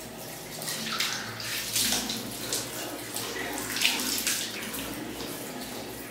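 Water running from a tap into a bathroom sink, splashing unevenly.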